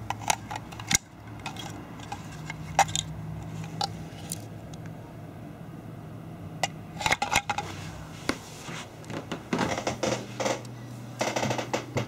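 Hard plastic parts of an opened Li-ion charger case being handled: scattered clicks and light clatter, growing busier in the second half.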